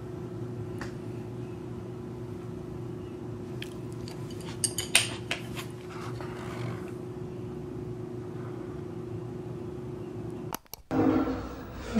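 Chopsticks and a plastic bento lunch box clicking and knocking lightly on the countertop, a short cluster of sharp clicks about five seconds in, over a steady low hum. Near the end the sound drops out briefly and a louder rushing noise comes in.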